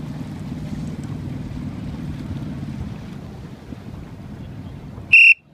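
A small motorboat's engine running steadily at low speed, heard as a low rumble under wind on the microphone and the wash of water. About five seconds in, a very short, loud, high-pitched beep or whistle sounds, and the rumble drops away just after it.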